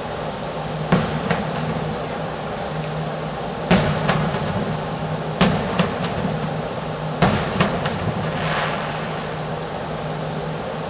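Distant fireworks shells bursting: four sharp bangs, each followed by a second report less than half a second later, and a brief crackle near the end. A steady low hum and hiss sits underneath.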